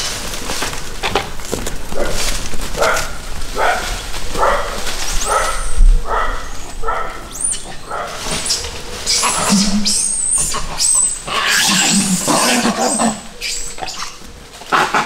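Dogs barking in a quick series, about two barks a second, then a louder, more crowded run of barking later on.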